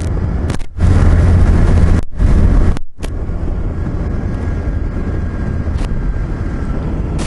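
Wind rushing over the microphone and road noise while riding a motorcycle on a wet road, steady throughout, with a louder stretch about a second in. The sound cuts out suddenly twice, briefly, once under a second in and again about three seconds in.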